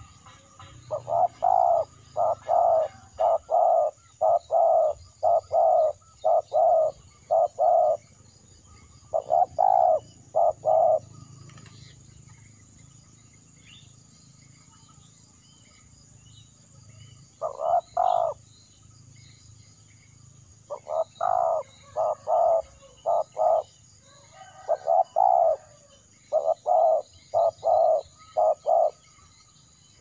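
Spotted dove cooing close by: runs of short, low coos, several notes to a run, with pauses of a few seconds between runs.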